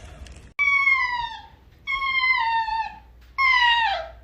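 A pet cries three times: high-pitched, drawn-out calls, each about a second long and sliding slightly down in pitch.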